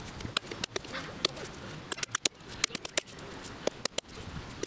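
Hultafors forest axe working a sweet chestnut log: quick, irregular, sharp strikes of the blade into the wood, several a second, as wood is cut away down to a saw cut.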